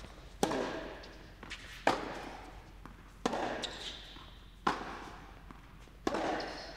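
Tennis ball struck by rackets in a baseline rally: five sharp hits about a second and a half apart, each echoing in an indoor hall.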